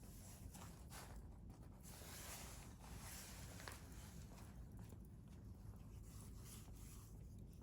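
A wood fire burning in a stainless steel fire grill, crackling faintly with soft hissing and an occasional small pop.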